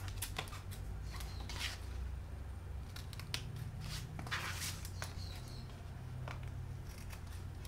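Pink-handled scissors making several separate snips, trimming excess grosgrain bias binding off the edge of a translucent plastic sheet, over a low steady hum.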